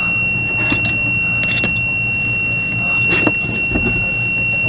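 Multimeter continuity beeper sounding one unbroken high tone: the melted power and ground wires are still touching, so the short is still there. Scattered clicks and scrapes come and go over a low hum.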